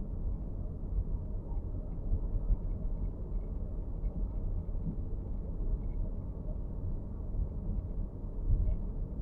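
Inside the cabin of a moving Nissan X-Trail e-POWER: a steady low road rumble with faint, irregular small ticks, the dashboard rattle being recorded.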